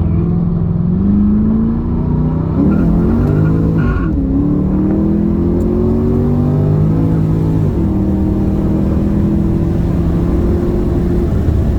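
Holden VX Commodore SS's stock LS1 V8, with an aftermarket exhaust and intake, at full throttle in a roll race. Its pitch climbs, drops sharply twice as it shifts up, and falls away as it backs off near the end.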